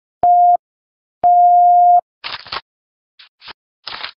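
Electronic beep tone at one steady pitch: a short beep, then a longer one about a second later. After it come several short bursts of swishing noise, like whoosh sound effects.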